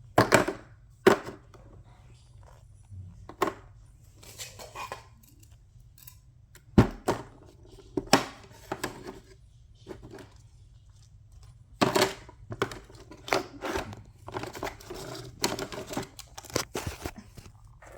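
Small fidget toys and miniature items being handled and put away: irregular clicks, knocks and brief rustling, with a few louder knocks.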